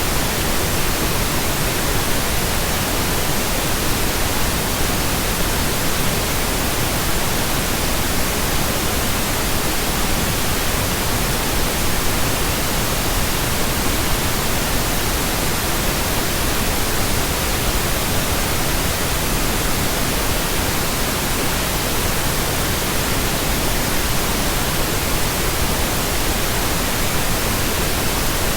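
Steady synthetic pink noise: an even, unbroken hiss with no tones, pauses or changes.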